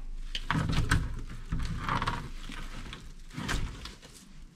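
Irregular knocks, thuds and rustles of rockfish being handled in a mesh net bag inside a plastic crate in a stainless-steel sink.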